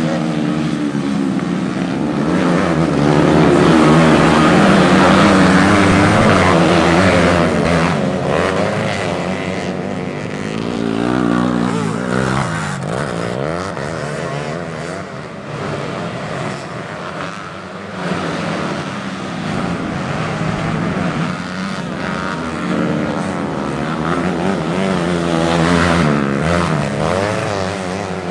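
Several modified underbone racing motorcycles running hard on a grasstrack circuit, their engines revving up and down and overlapping as they pass, loudest a few seconds in and again near the end.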